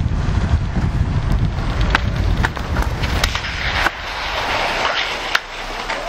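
Wind rushing over the microphone and longboard wheels rolling on asphalt on a downhill run, with sharp clicks from about two seconds in. About four seconds in the low wind rush drops away as the board slows, leaving a hiss of wheels on the road.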